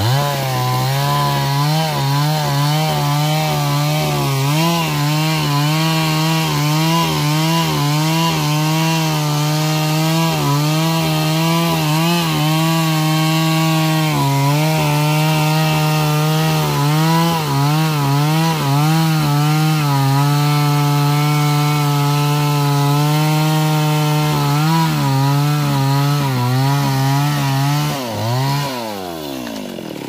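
Two-stroke chainsaw revving up and cutting through wood at full throttle, its pitch wavering under the load of the cut. Near the end the throttle is released and the engine winds down toward idle.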